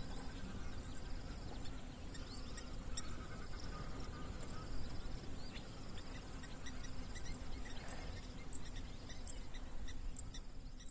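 Outdoor ambience of insects trilling: a high pulsed trill, each about a second long, repeating every second or so. Short high chirps are scattered through it over a low rumble.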